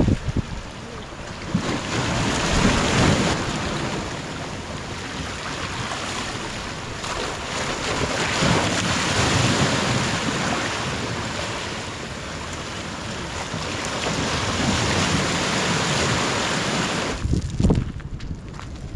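Sea surf washing over breakwater rocks, with wind on the microphone, surging and easing every few seconds. Shortly before the end the surf cuts off, followed by a couple of knocks.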